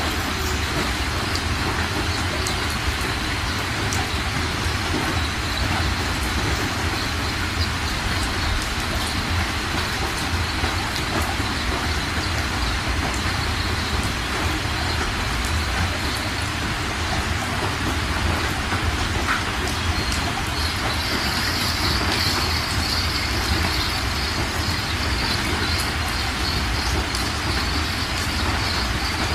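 Fast-flowing floodwater rushing and churning over rocks: a steady rushing noise with a deep rumble underneath.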